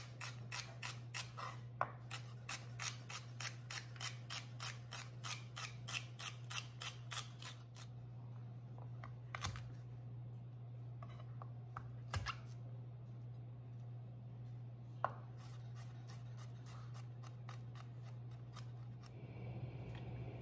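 Chef's knife chopping celery on a wooden cutting board: a steady run of crisp cuts, about three to four a second, for the first eight seconds. Then come a few single knocks of the knife on the board, and another quicker run of lighter cuts as garlic is minced. A steady low hum sits underneath.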